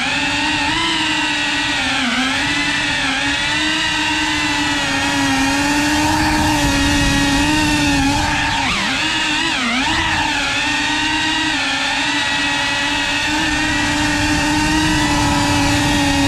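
FPV racing quadcopter's brushless motors and propellers giving a steady buzzing whine in flight, with the pitch dipping briefly and recovering a few times as the throttle is eased and opened again.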